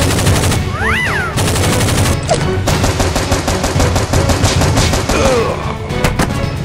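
Automatic machine-gun fire sound effects in rapid, dense bursts, with a short whistling glide about a second in, over background music.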